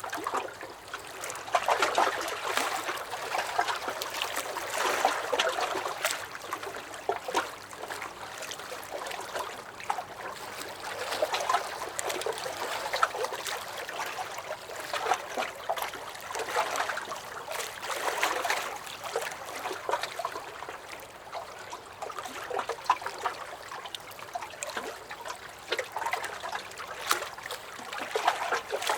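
Small lake waves lapping and sloshing against a dock, in uneven swells every few seconds with many small splashes and trickles.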